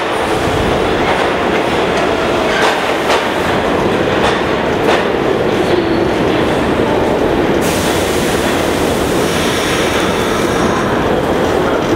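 New York City Subway R46 train running into the station with a steady rumble and wheels clacking over rail joints, its noise easing as it slows to a stop in the second half.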